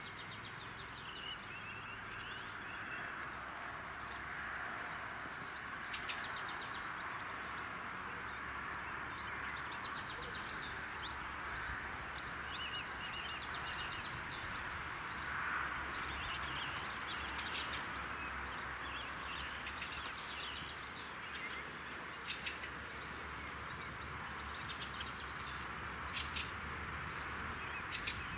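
Birds singing, with repeated quick trills, over a steady background of outdoor noise.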